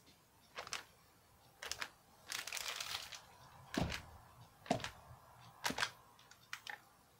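A bag-wrapped mallet slapping down onto a canvas of wet acrylic paint, about six blows roughly a second apart, with the plastic bag crinkling around it.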